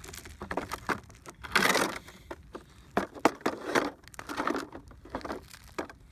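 Handling sounds from a plastic tool case as a cooling-system pressure tester's hand pump and hose are lifted out: irregular clicks and knocks of plastic and metal parts, with a louder rustling scrape about one and a half seconds in.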